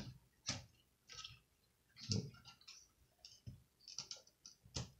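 Light, irregular plastic clicks and taps from the laptop's screen panel and housing being handled, a dozen or so spread over a few seconds.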